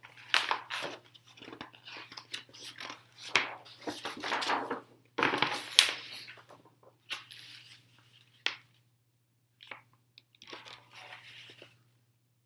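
Paper rustling and crinkling in irregular bursts as the large pages of a big book are handled and turned, over a faint steady low hum.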